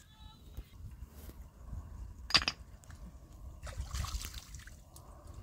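Water pouring and splashing, with a short loud splash about two seconds in and a longer spill of water around four seconds.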